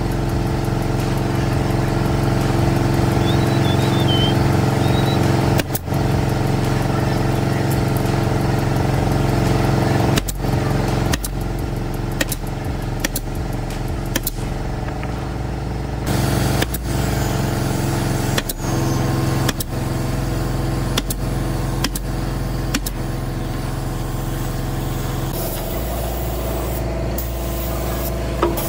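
A machine or engine running steadily with a low hum, its tone shifting slightly at several abrupt breaks.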